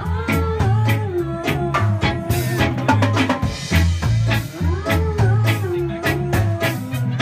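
Live reggae band playing: a pulsing bass line and drum kit under a lead singer on a microphone.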